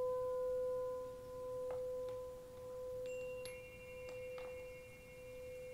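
A sound-healing instrument holding one sustained ringing tone that slowly pulses in loudness and gradually dies away. Fainter, higher chime-like tones join about halfway through, with a few soft ticks.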